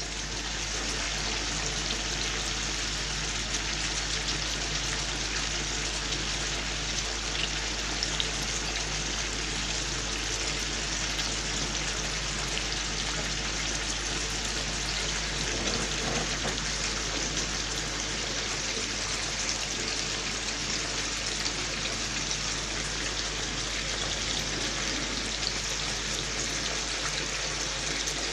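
Pieces of wild mallard duck simmering and sizzling in a frying pan as their cooking water boils off: a steady bubbling hiss with fine, scattered crackles.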